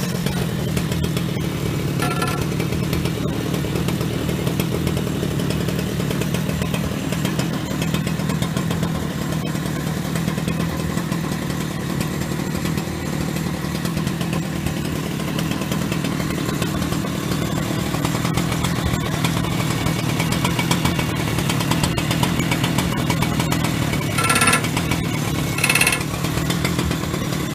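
Husqvarna 3120 XP two-stroke chainsaw idling steadily. A brief higher sound comes about two seconds in, and two more near the end.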